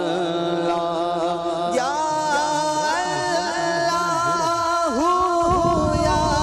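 Background devotional song (a hamd praising Allah): a voice sings long, wavering held notes over a steady drone. A low rumble joins near the end.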